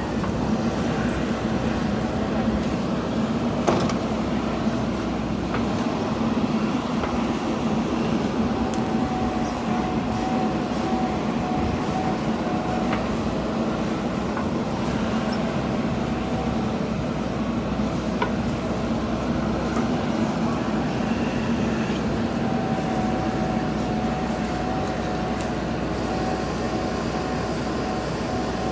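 JCB 3DX Super backhoe loader's diesel engine running steadily under load while the backhoe arm digs and lifts earth. A steady higher whine comes in twice for several seconds, and there is one sharp knock about four seconds in.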